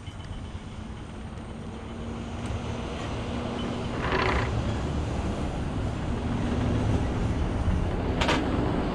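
Wind buffeting the microphone and water rushing along a sailboat's hull under way, slowly growing louder, with two short hissing bursts about four and eight seconds in.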